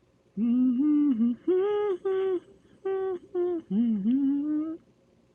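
A person humming a tune in several short, held phrases that slide up and down in pitch.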